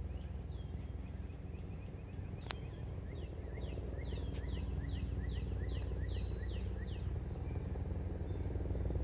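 Young Canada geese peeping: short, high, falling notes, a few at first, then a quick run of them from about three seconds in to about seven, over a steady low rumble. A single sharp click about two and a half seconds in.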